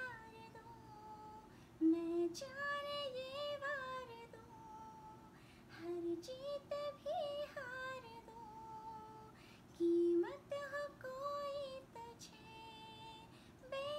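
A woman singing a slow, melodic Hindi film song solo, holding long wavering notes in phrases with short pauses between them. A short low tone sounds three times, about four seconds apart.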